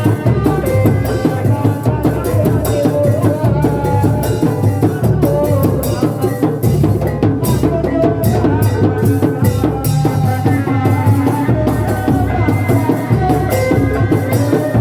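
Live Sundanese reak ensemble music for a kuda lumping show: a steady, loud drum beat under a wavering melody line.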